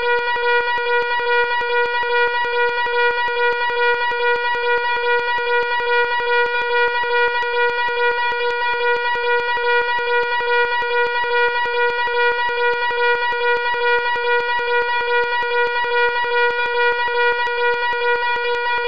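Fire alarm sounding continuously: a loud, harsh buzzing tone with many overtones and a fast, even flutter.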